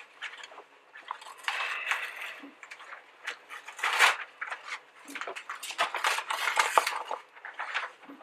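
Hard plastic model-kit sprue being handled and lifted out of its box: irregular light clicks, taps and rattles of plastic, with a few brief rustles.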